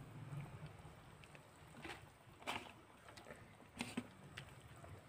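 Faint low rumble of water boiling in a pot on a gas burner, with a few soft rustles and splashes as handfuls of fresh spinach leaves are pushed off a plate into the water.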